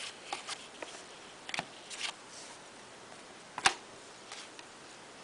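Trading cards being handled and flipped through: a scatter of short rustles and clicks, the sharpest about three and a half seconds in.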